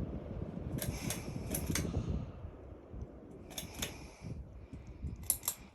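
Harbor Breeze Mayfield ceiling fan running, its breeze rumbling on the microphone, with four pairs of sharp light clicks spread through.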